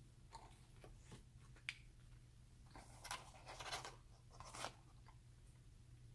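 Soft rustling and crinkling of a cardboard nugget box being handled, loudest in the middle, after a few faint clicks, over a low steady hum.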